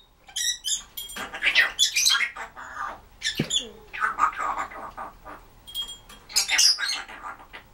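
Timneh African grey parrot making a string of short clicks, squeaks and chirps with brief pauses between them, including a falling whistle about three and a half seconds in.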